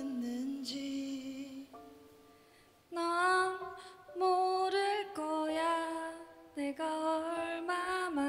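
A man sings a ballad line solo into a microphone. After a brief lull, about three seconds in, a woman takes over in a higher voice with long, wavering notes, the two trading lines as a duet.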